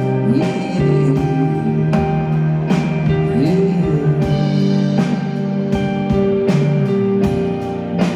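Live rock band playing an instrumental stretch of a song between vocal lines: sustained guitar and keyboard-like chords over a drum kit keeping a steady beat.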